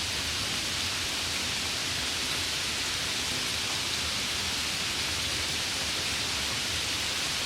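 Steady rain falling, an even hiss with no distinct drops or thunder standing out.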